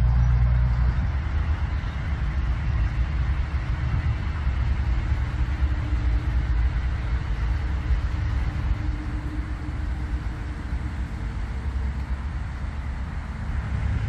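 Steady outdoor rumble of distant road traffic mixed with wind buffeting the microphone, with a faint engine hum swelling and fading through the middle.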